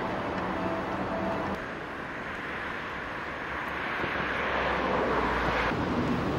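Street traffic noise with a car passing: the noise swells for a couple of seconds, then cuts off suddenly near the end. A faint steady hum sits under the first second and a half.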